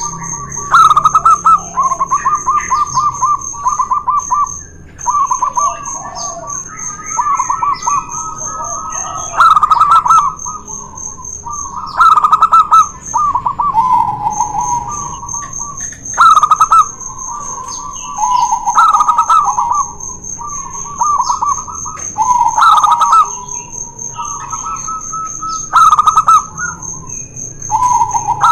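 Two zebra doves (perkutut) calling back and forth, phrase after phrase of rapid rolling coos, one bird pitched a little higher than the other. A steady, high-pitched pulsing tone runs behind them.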